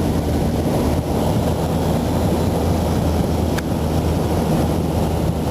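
Cessna 182's piston engine and propeller droning steadily, heard from inside the cabin, with one brief click about three and a half seconds in.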